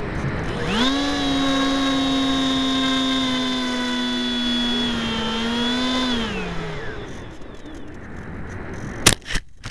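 An RC plane's electric motor and propeller, heard from the onboard camera, spin up sharply about a second in to a steady whine, then wind down and fade about six seconds in; the motor is running again after the speed controller's low-battery cut-off. Wind rushes over the microphone throughout, and two sharp knocks come near the end.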